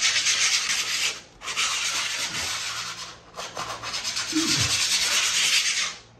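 Hand-sanding of cured fibreglass laminate: three long rasping passes of abrasive over the joint with the previous day's layer, a light denib before more resin goes on.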